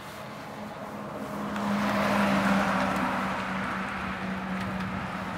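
Flatbed crane truck driving past on the road, its engine drone and tyre noise swelling to a peak about two seconds in and then easing slightly.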